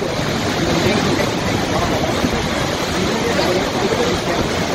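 Mountain river torrent, the Saraswati, plunging through a narrow rock gorge: a steady, loud rush of white water.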